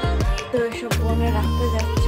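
Background music with a steady beat and deep held bass notes.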